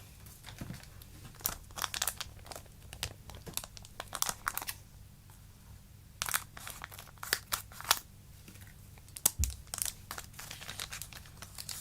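Foil Pokémon card booster-pack wrapper crinkling and tearing in short bursts as it is handled and opened, with one knock about nine seconds in.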